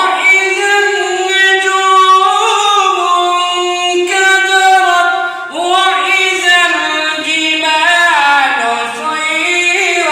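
A single high-pitched voice reciting the Quran in a melodic chanting style, holding long ornamented notes, with a short breath pause about halfway through.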